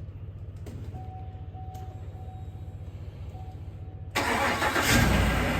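A 2017 Chevrolet Silverado 1500's V8 is started about four seconds in: it comes in suddenly, swells briefly, and keeps running. Before it there is a low steady rumble and a faint on-and-off beeping tone.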